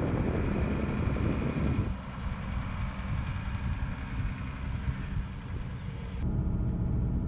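Four-wheel-drive expedition truck driving along a dirt track, its engine running with a steady low rumble. The sound changes abruptly about two seconds in and again near the end.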